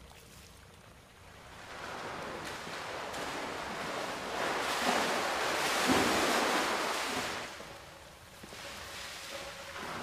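Heavy water splashing as a person thrashes in a tiled bathhouse pool, building from about two seconds in to its loudest around five to seven seconds, then dying down to a softer wash of water.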